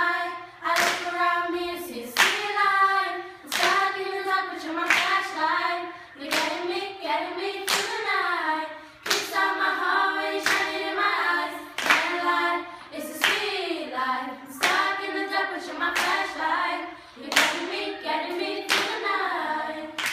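A group of girls singing together, keeping time with hand claps, one clap about every second and a half.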